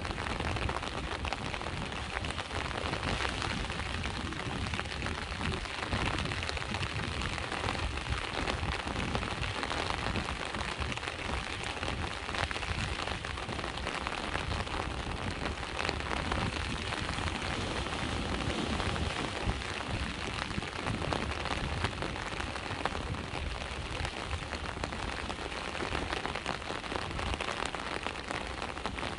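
Steady rain falling, over the low, continuous wash of sea waves.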